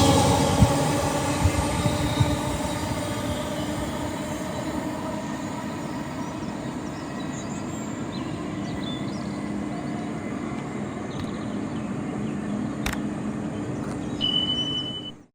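A passenger train running past on the main line, its rumble fading as it draws away, with a few sharp wheel clicks in the first couple of seconds. Near the end comes a brief steady high tone, then the sound cuts out.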